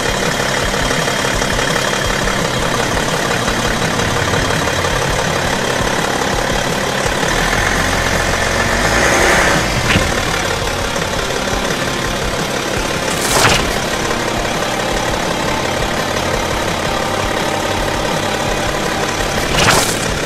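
BMW SUV engine idling steadily as the car's tyre presses slowly down onto a soccer ball, with three brief louder noises about nine, thirteen and twenty seconds in.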